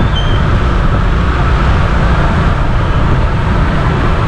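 Steady low rumble of a motorcycle being ridden along a wet road: its engine running, with tyre and wind noise.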